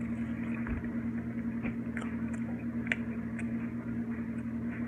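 A person chewing food, with a few faint mouth clicks, over a steady low hum.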